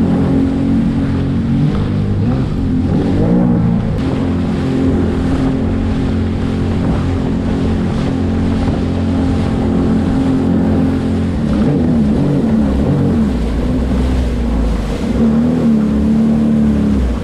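Jet ski engine running under way at a steady pitch, wavering briefly up and down a few times as it rides over the chop, with splashing water and wind on the microphone underneath.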